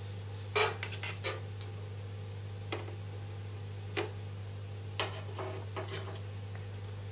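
Irregular light clicks and taps from a feeding stick being worked in an aquarium, the sharpest about half a second in, over a steady low hum.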